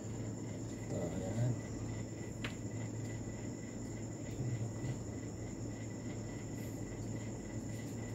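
Crickets chirring steadily in a constant high-pitched drone over a low steady hum, with one faint click about two and a half seconds in.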